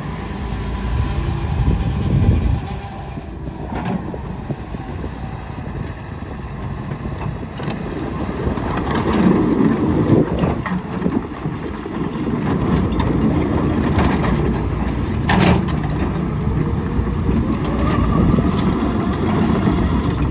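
Hitachi Zaxis 210 LC-6 tracked excavator with its Isuzu diesel running and the machine working. A steady low engine rumble grows louder after several seconds, and metallic clanks from the machine come through at intervals.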